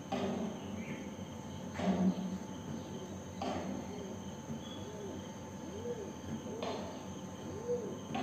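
A steady high-pitched insect trill, typical of crickets, runs throughout, with a soft knock every second or two and faint low rising-and-falling tones in the second half.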